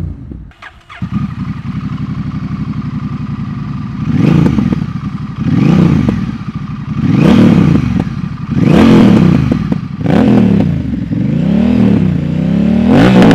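Honda Rebel 1100's parallel-twin engine breathing through a new aftermarket exhaust, idling and then revved about seven times in quick throttle blips, each rising and falling in pitch.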